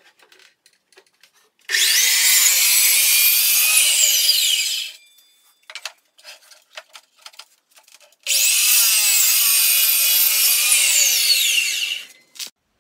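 Sliding chop saw cutting through an end-grain maple, cherry and walnut cutting board twice, each cut about three seconds long: a high whine whose pitch sinks as the blade goes through, stopping fairly abruptly. Light knocks between the cuts as the board is shifted.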